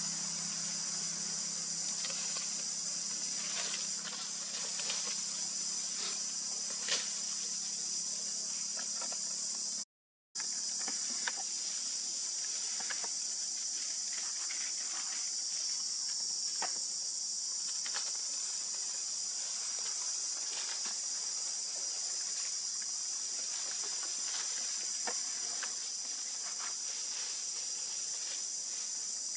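Steady, high-pitched chorus of insects, with scattered small clicks and ticks. A low steady hum sits under it for the first ten seconds, and the sound drops out completely for a moment about ten seconds in.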